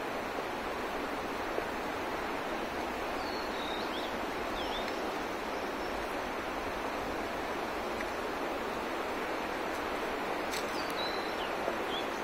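Steady rushing of a mountain river, with a few short, high bird chirps about three to five seconds in and again near the end.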